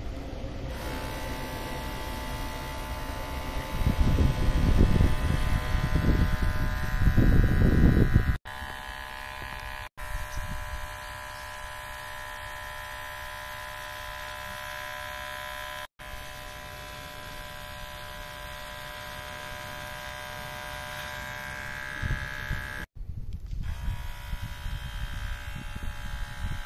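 Hatteker cordless electric hair clippers buzzing steadily while cutting short grey hair close to the scalp. A low rumbling comes and goes over the buzz, loudest from about four to eight seconds in and again near the end. The buzz drops out for an instant several times.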